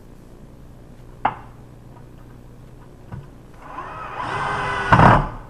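Cordless drill driving a screw through the light fixture's mounting backing into the underside of a wooden cabinet: the motor winds up and runs for about a second and a half, loudest just before it stops. A sharp click about a second in.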